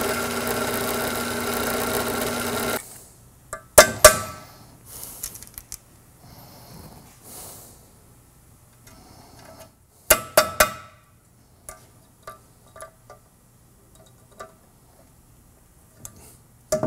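A drill press running and boring through the steel stud on the end of a control-arm bushing shaft, drilling the hole for the cotter pin; it stops about three seconds in. After it come a few loud, sharp metallic clinks and scattered lighter clicks of tools and parts being handled.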